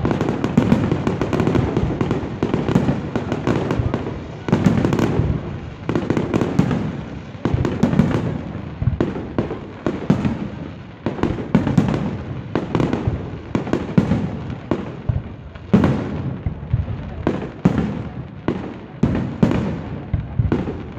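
Fireworks display: aerial shells bursting in a rapid, continuous barrage of bangs, several a second.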